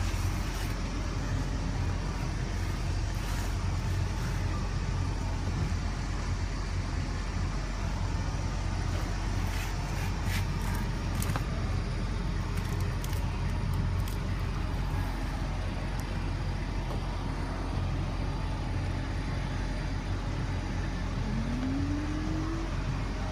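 Nova Bus LFS transit bus running steadily with a low, even drone. There are a few light clicks in the middle and a rising tone near the end.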